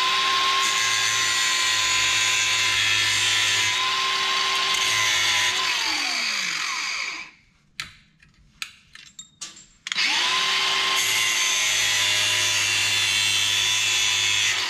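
Angle grinder cutting off the excess ends of steel Jubilee clips. It spins up to a steady whine with a hiss of cutting and winds down about six seconds in. After a few clicks of handling it starts again about ten seconds in and cuts on, throwing sparks.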